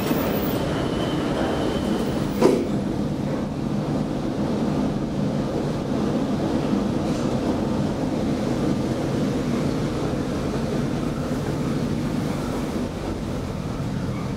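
1974 KONE inclined elevator car travelling along its inclined track: a steady running noise with a low hum, and a single sharp clunk about two and a half seconds in.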